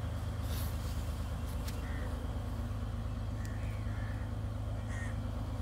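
A steady low engine hum, unchanging throughout, with a few faint short high chirps over it.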